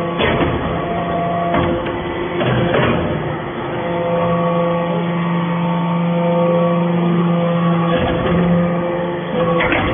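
Hydraulic metal-shavings baling press running: a steady mechanical whine that shifts pitch a few times as it works, with several sharp knocks along the way.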